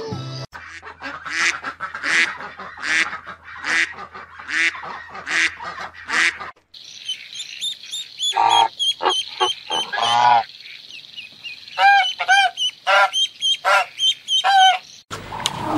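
Swans calling: a run of repeated calls about one a second, then after a short break a series of nasal honks, some in quick pairs. Near the end a lion's deep roar begins.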